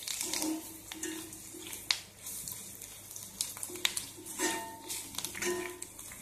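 Garlic cloves, dried red chillies and tamarind frying in oil in a kadai with a steady sizzle, while a metal spoon stirs and scrapes the pan with several sharp clinks. The garlic is being sautéed until its raw smell goes.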